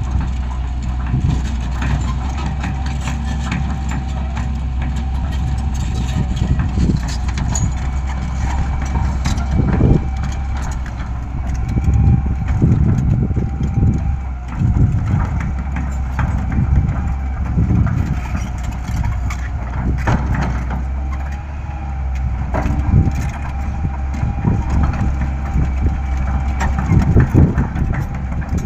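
Heavy construction machine's diesel engine running steadily with a constant whine, under irregular crunching and cracking as material, likely wood, is crushed and broken.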